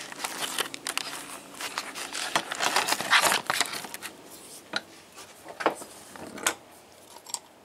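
Scattered clicks, knocks and scrapes of metal tools and starter parts being handled at a workbench, mixed with rubbing from the camera being moved. The sounds are busiest in the first few seconds and thin out toward the end.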